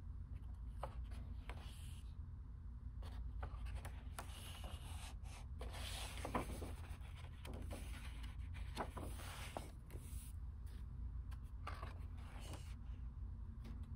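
Pages of a large hardcover art book being turned by hand: several paper swishes and rustles as the big sheets are lifted and laid over, with the hand sliding across the paper, over a steady low hum.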